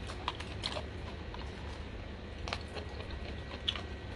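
A metal spoon clicking and scraping against the inside of a plastic cup while fishing out pineapple pieces, a few scattered light clicks.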